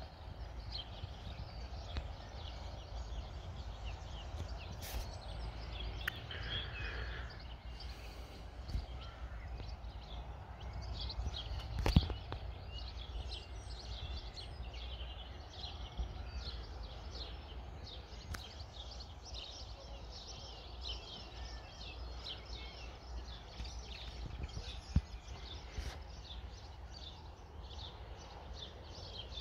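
Horse's hoofbeats on a sand arena surface, soft and distant, with birds singing and a steady low rumble. A sharp knock comes about twelve seconds in and a smaller one near twenty-five seconds.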